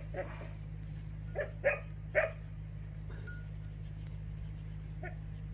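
A dog barking three short times in quick succession, between one and two seconds in, after a fainter bark at the start, over a steady low hum.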